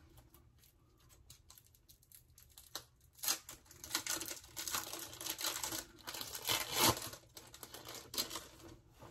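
Plastic food packaging crinkling and rustling as it is handled, starting about three seconds in, with a few small clicks before it.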